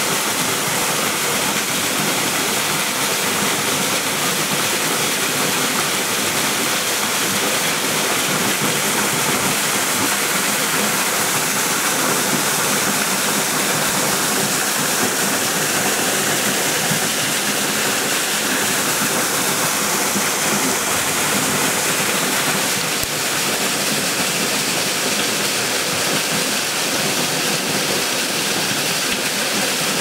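Waterfall: falling water making a steady, even rush that does not change.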